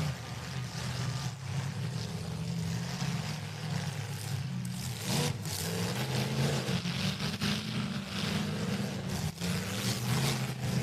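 Demolition derby car engines running and revving, with occasional short knocks.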